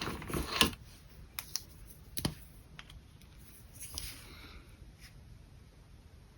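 Pen and paper being handled for a sketch: a quick flurry of taps and rustles, a few sharp clicks about one and a half to two seconds in, then a brief scratchy pen stroke on paper near the middle.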